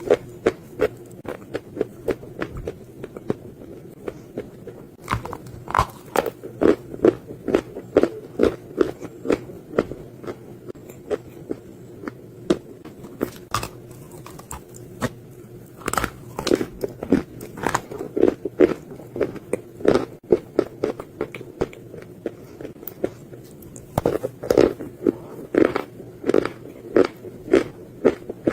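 Dry clay being bitten and chewed: a continuous run of sharp, crunchy bites and chews, several a second, sparser for a stretch in the middle.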